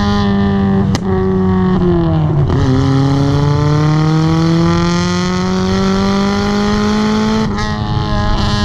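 Turbocharged 1994 Mazda MX-5 1.8 engine with a straight-through exhaust, running under load as the car drives. The engine note falls sharply about two and a half seconds in, then climbs steadily for about five seconds as the revs build. There is a short click about a second in and another change in pitch with a click near the end.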